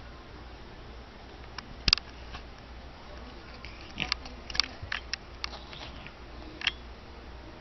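A few short, sharp clicks and taps over a low steady background: a loud one about two seconds in, a quick cluster about four to five and a half seconds in, and one more near the end.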